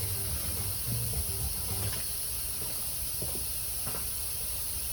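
Steady high-pitched hiss with a low rumble beneath it, and a couple of faint clicks a little past the middle.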